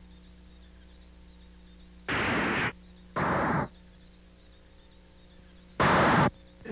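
Three short bursts of television static hiss, each about half a second long, switching on and off abruptly over a faint steady electrical hum.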